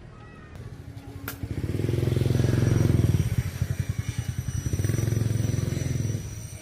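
A small engine running with a fast pulsing beat, swelling in loudness twice and then dropping away.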